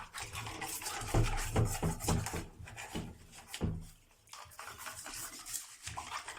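Scrubbing a dirty vacuum cleaner part by hand: irregular rubbing and rasping strokes, with a short pause about four seconds in.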